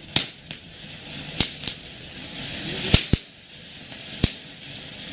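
Pogo Red fountain firework from Yuvraj Fireworks spraying sparks with a steady hiss that swells about three seconds in, broken by several sharp cracks.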